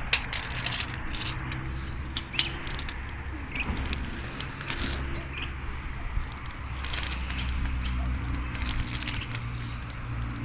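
Scattered light clicks and scrapes of handling as a tape measure is worked across asphalt roof shingles, over a steady low hum.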